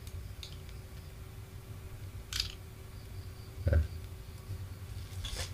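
A few faint, sharp clicks and one duller tap of a small tool prying at the metal back end of a T12 soldering tip to release its latch, over a low steady hum.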